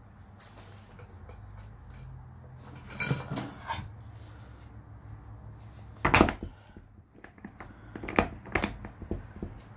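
Steel transaxle gears and shafts from a Murray riding mower clinking and clanking as they are lifted and set into the gear case. The knocks come in a few separate groups, the loudest about six seconds in.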